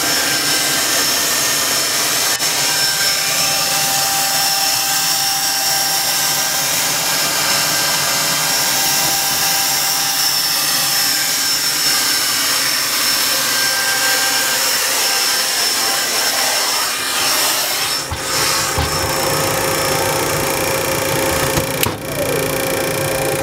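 Cockpit noise of a Gulfstream II-SP with its Rolls-Royce Spey turbofan engines running at idle: a steady rush of noise with several thin, steady high-pitched tones over it. A deeper rumble comes in about three-quarters of the way through.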